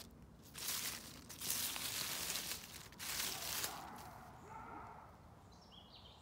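Footsteps crunching through dry leaf litter on a woodland floor: a few rustling steps in the first four seconds, then quieter, with faint bird chirps near the end.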